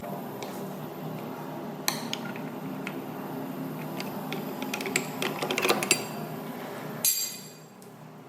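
Tools clicking and knocking on metal door hardware over a steady background hum: one sharp knock about two seconds in, a run of clicks around five to six seconds, and a brighter metallic clatter just after seven seconds.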